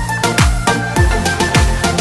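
Background electronic music with a steady beat of deep kick drums that drop in pitch.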